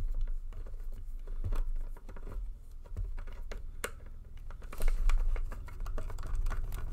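Screwdriver backing a face mask screw out of its T-nut on a Schutt football helmet: irregular small clicks and scrapes of metal against the plastic shell, a little louder about five seconds in.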